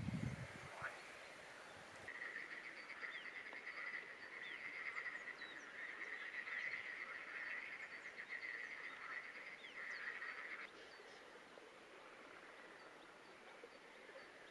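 Frogs calling in a rapid trilling chorus, starting about two seconds in and cutting off abruptly near the end, with scattered short bird chirps over it. A brief low thud right at the start.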